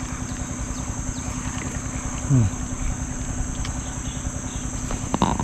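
Steady high-pitched chorus of insects droning without a break. A short voice-like sound comes in about two seconds in and again just before the end.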